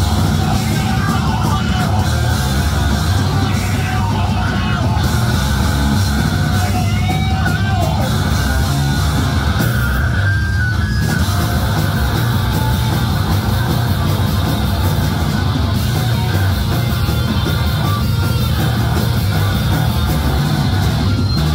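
Live rock band playing loud, with distorted electric guitars, heard from in the crowd.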